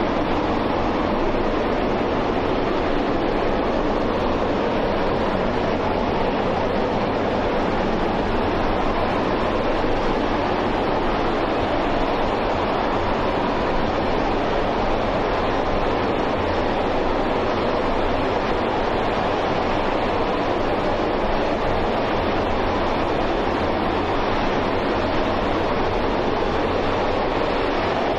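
RS-25 liquid-hydrogen/liquid-oxygen rocket engine, the former Space Shuttle Main Engine, firing at full run on a static test stand: a loud, steady, unbroken rush of noise with no change in pitch or level.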